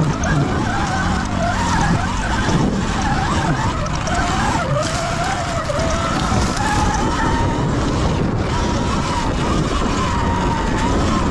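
Sur Ron electric dirt bike's motor whining, its pitch rising and falling as the bike speeds up and slows on the trail, over a steady low rumble.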